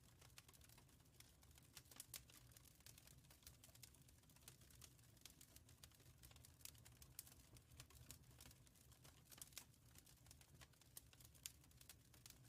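Wood fire crackling faintly: irregular sharp pops and ticks, several a second, over a steady low hum.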